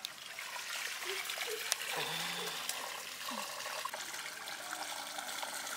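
Water poured out of a metal pot, splashing and trickling steadily onto stony ground.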